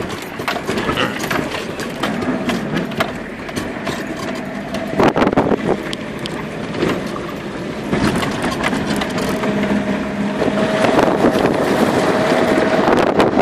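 Off-road 4x4's engine running at low speed, heard from inside the cabin, with the body rattling and knocking over a rough dirt track. A cluster of louder knocks comes about five seconds in, and a steady whine joins in the second half as the noise grows.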